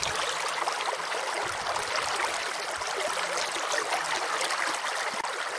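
Shallow river water rippling over a pebble bottom: a steady, even rush of running water.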